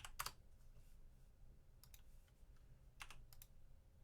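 A few faint single computer keyboard keystrokes, spaced apart, against quiet room tone.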